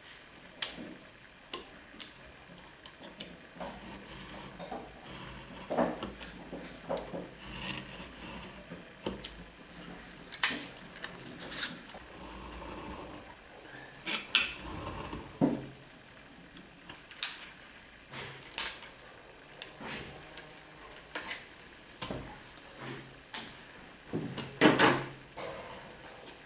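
Utility knife scoring a sheet of wood veneer along a steel ruler, with the ruler and veneer being handled: a string of short, uneven scrapes and clicks, the loudest near the end.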